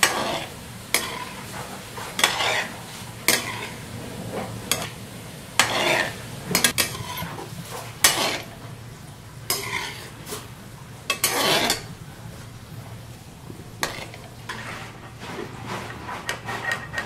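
A slotted metal skimmer scraping and clinking against a metal kadhai about once a second as gulab jamun balls are turned and lifted out of hot oil. A low sizzle of frying runs underneath, and the scrapes grow fainter near the end.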